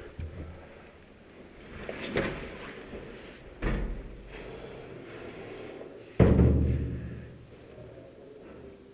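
Three dull thumps over low rustling. The last thump, about six seconds in, is the loudest and fades over about a second.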